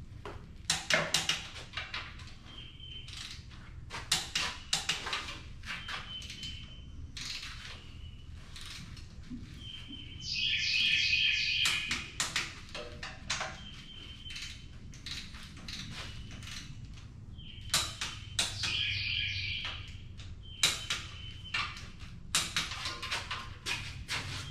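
Ratchet wrenches clicking in quick runs as the cylinder-head bolts of a 997-cubic-inch V8 are torqued down, with short high chirps every couple of seconds and a longer chirping stretch about ten seconds in.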